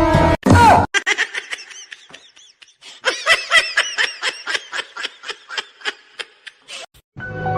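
Someone laughing hard in a long run of short, high-pitched bursts, about three a second, after a snatch of music that cuts off at the start.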